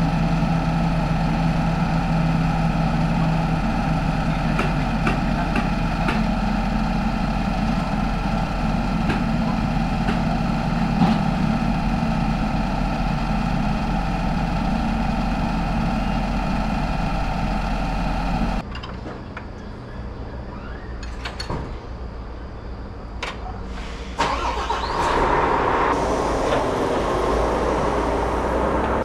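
Tow truck engine running steadily with road noise while under way. About eighteen seconds in the drone cuts off abruptly and gives way to a quieter stretch with scattered knocks and clicks.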